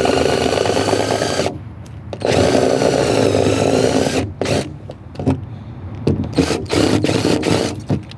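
Cordless drill drilling out a door handle's rivets: two long runs with a steady motor whine, then several short bursts.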